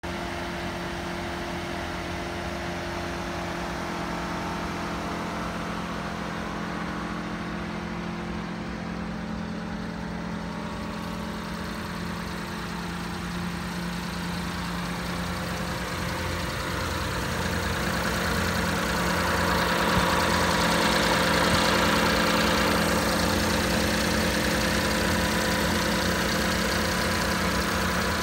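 Mitsubishi Minicub kei truck's small three-cylinder engine idling steadily, getting louder about two-thirds of the way through as the open engine hatch under the seat is approached.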